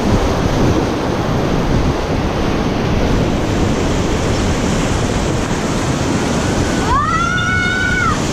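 Whitewater rapids rushing loudly and steadily around a raft running through them. Near the end, a child gives a high yell that rises and then holds for about a second.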